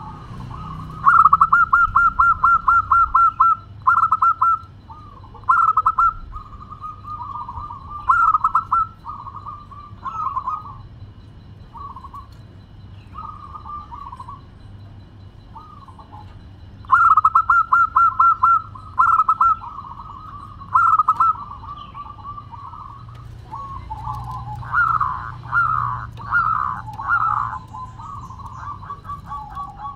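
Zebra dove (perkutut) singing: a fast run of short cooing notes about a second in and again at about 17 s, with shorter phrases between and a run of louder notes near the end.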